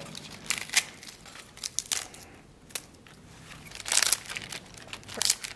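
Crisp napa cabbage leaves torn apart by hand, irregular snapping and crackling tears, the loudest about four seconds in.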